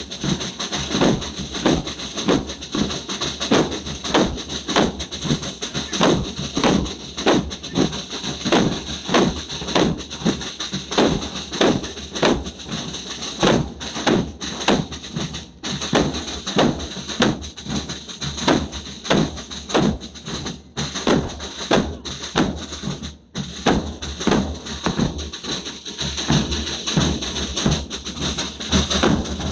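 A large group of big double-headed bass drums beaten with sticks in unison, a steady pounding rhythm of about two beats a second.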